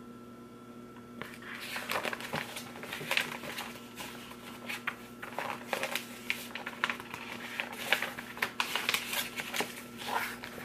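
Glossy magazine pages rustling and crinkling in the hands as they are handled and turned, with many irregular crackles and soft clicks.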